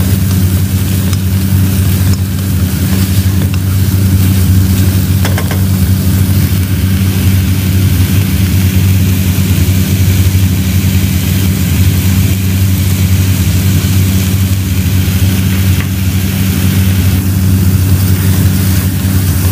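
Loud, steady low mechanical hum that does not change.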